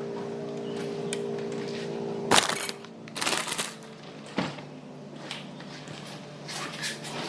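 Household tidying: objects being handled and set down, with a sharp knock a little over two seconds in and several shorter spells of clatter and rustling, over a steady low hum.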